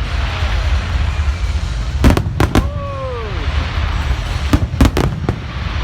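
Fireworks display: several sharp bangs in two clusters, about two seconds in and again near the end, over a steady low rumble, with a few falling tones just after the first cluster of bangs.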